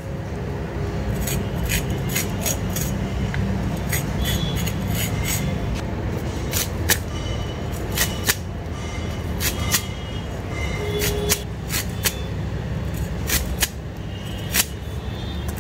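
A curved knife blade cutting into a crisp star fruit, with an irregular sharp click at each cut, about one or two a second, over a steady low background rumble.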